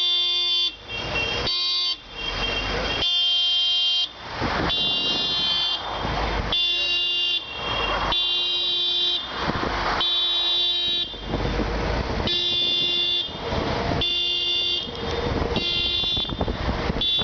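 Car horns honking repeatedly in protest: a string of steady horn blasts, short and long, following one another with brief gaps, over traffic noise.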